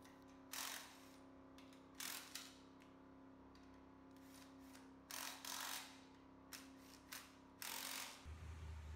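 Cordless power driver run in short bursts, about six times, while bolts on an engine's front accessory bracket are driven, over a steady low hum.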